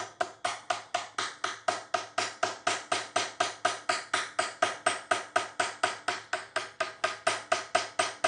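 Small hammer tapping a homemade steel pattern punch into timber in a quick, even run of light knocks, about four to five a second. The punch is held just above the surface, so each hit rebounds rather than driving it home.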